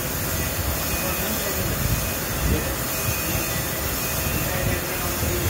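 Crankshaft grinding machine running, its grinding wheel cutting a turning crankshaft journal under coolant spray: a steady rushing hiss and drone.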